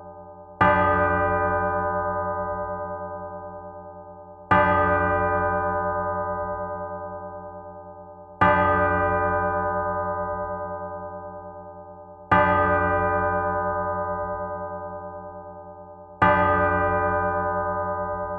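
Large cathedral bell tolling, struck five times about every four seconds; each stroke rings out with several steady tones and slowly fades, over a throbbing low hum.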